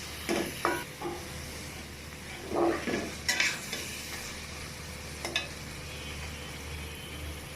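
Jackfruit seeds being stirred through spice paste frying in oil in a pan: a steady sizzle with a utensil scraping and knocking against the pan a few times, about a second in, around three seconds in and again near five seconds.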